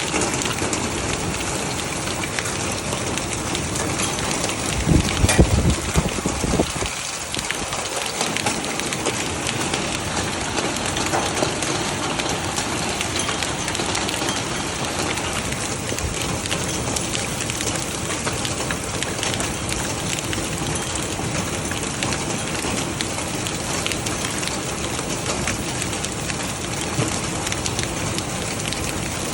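Heavy rain and hail pounding down in a steady hiss, dotted with sharp ticks of hailstones striking. A louder low rumble about five seconds in lasts a couple of seconds.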